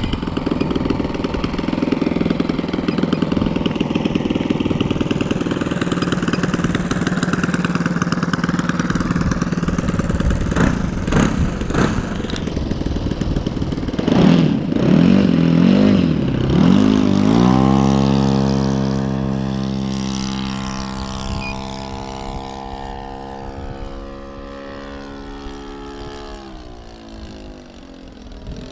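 Saito FG-21 single-cylinder four-stroke petrol engine of a model Cub, run without a muffler, running loud and open-exhausted at high throttle. It is loudest about halfway through, then settles into a steady note that fades away over the last ten seconds as the plane flies off.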